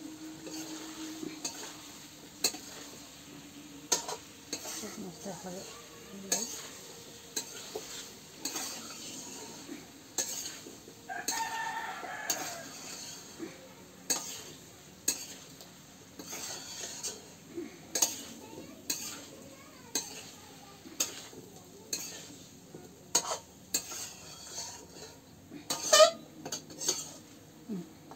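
Metal spatula stirring and scraping spiced cauliflower and potatoes in a steel karahi, knocking against the pan about once a second, with the food sizzling in the oil. The loudest knock comes near the end.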